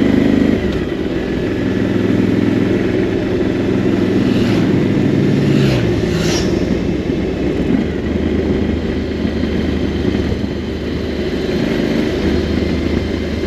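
Motorcycle engine running steadily while riding, heard from the rider's seat with wind noise. About six seconds in, an oncoming motorcycle passes briefly.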